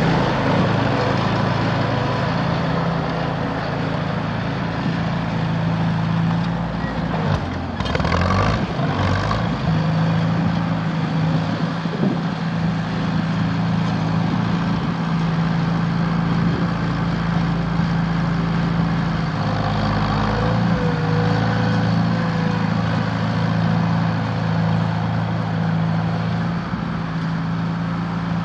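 Farmall H tractor's four-cylinder gas engine running steadily.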